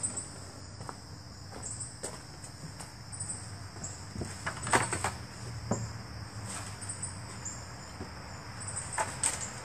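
Crickets chirping steadily, with a few scattered knocks and clatters of things being handled, the loudest about halfway through and again near the end.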